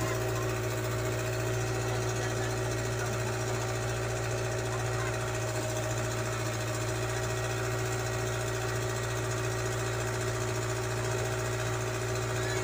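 Boat engine running steadily at cruising speed.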